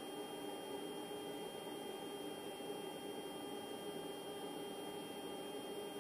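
Steady electrical hum with a thin, high-pitched whine from powered bench test equipment, unchanging throughout.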